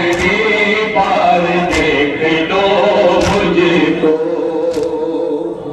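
Men chanting a Muharram noha (a mourning lament) a cappella into microphones. Sharp strikes come about every second and a half, in time with the chant: mourners beating their chests (matam).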